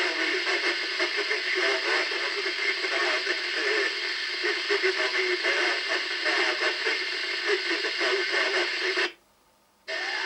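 Audioline PT345 FM CB base station receiving through its speaker: a hissy, noisy received signal that cuts off abruptly about nine seconds in as the squelch closes, then opens again just before the end.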